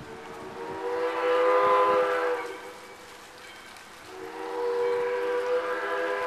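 Valley Railroad #40's steam whistle sounding two long chime blasts, the first swelling and dying away after about two and a half seconds, the second starting about a second and a half later and still going at the end. Two long blasts is the usual railroad signal that the train is about to move off.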